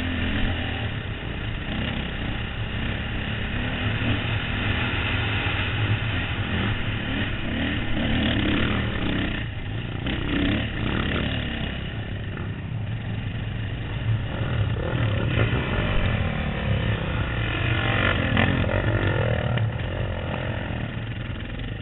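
Dirt bike engine running under way on a dirt trail, heard from the rider's helmet, its note rising and falling with the throttle.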